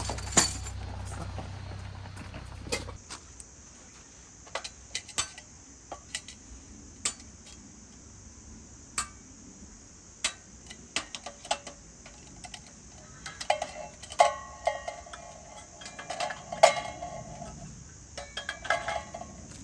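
Camping dishes and cutlery being handled: scattered clinks and clatters, coming thicker and ringing briefly in the last third.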